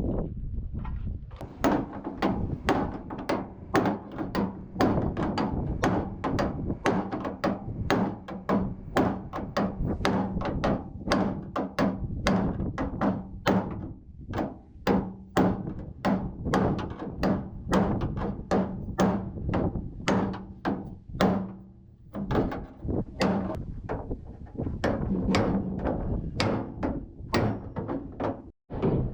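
Repeated hammer blows, about two to three a second, over a steady low hum, with a short break about three quarters of the way through.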